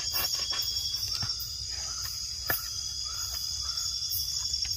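Steady night chorus of forest insects, crickets among them, keeping up a continuous high trill. A few sharp clicks cut through it, the loudest about halfway.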